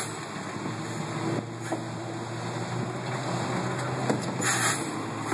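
Diesel engine of a concrete mixer truck running steadily as it climbs a mountain switchback loaded with nine yards of concrete, with a brief hiss about four and a half seconds in.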